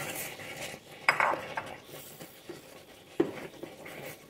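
Wooden spatula stirring and scraping a thick jackfruit-and-jaggery mixture with grated coconut around a pan, with two sharper knocks of the spatula against the pan, about a second in and again after three seconds.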